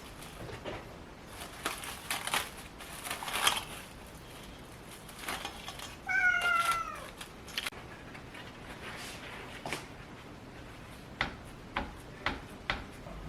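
A domestic cat meows once, a single slightly falling call about a second long, among short rustling noises and a few sharp clicks.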